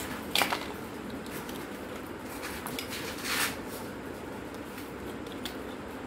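Plastic camera body parts being handled and worked apart by hand: a few clicks and short scrapes, the loudest about half a second in and just after three seconds, over a steady background hum.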